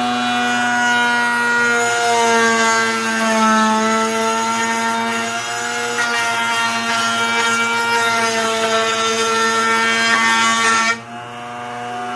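Table-mounted router running at full speed with a steady high whine while cutting the edge of a wooden board fed against the starter pin; the pitch sags a little under load. About eleven seconds in, the cutting noise stops suddenly as the board comes off the bit, and the motor keeps whining.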